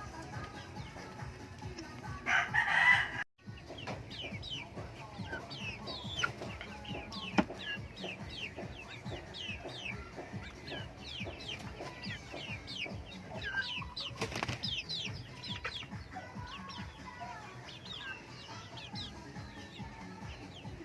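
Native chickens: many short, high, falling peeps from chicks, with fowl clucking underneath. A loud flurry of wing flapping comes about two to three seconds in, after which the sound cuts out for a moment, and another brief flutter comes about halfway through.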